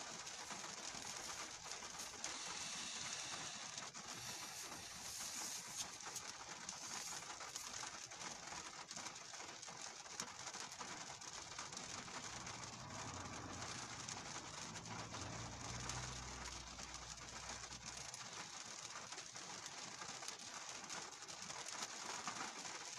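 Rain falling steadily on a car, heard from inside the cabin as an even patter, with a low hum from about halfway through until a few seconds later.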